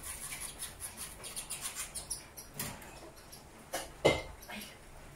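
Male Gouldian finch singing: a run of faint, very high, rapid clicking and buzzing notes, with a sharper, louder sound about four seconds in.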